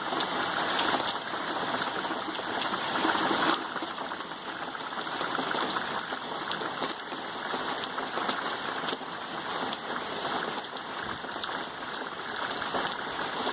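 Steady heavy tropical-storm rain, a continuous hiss with many drops pattering on surfaces. It is a little louder at first and eases slightly about three and a half seconds in.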